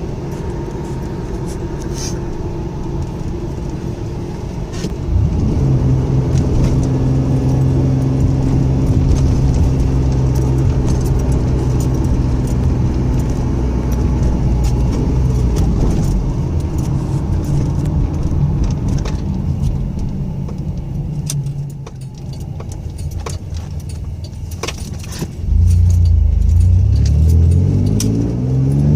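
Inside the cabin of a 1997 Camaro, its 3.8-litre V6 engine running under way. About five seconds in, the engine gets louder and holds a steady note. It eases off past the middle, then pulls harder near the end with the pitch climbing. Light clicking and rattling runs throughout.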